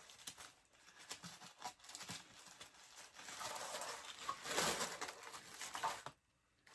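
Packaging rustling and crinkling as items are handled and unwrapped, in irregular swells with small clicks, cutting off suddenly about six seconds in.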